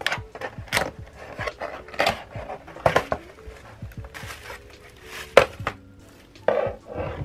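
Cardboard shipping box being opened by hand and a bubble-wrapped lamp lifted from it: a run of sharp cardboard scrapes, taps and plastic crinkles, with one louder knock about five seconds in.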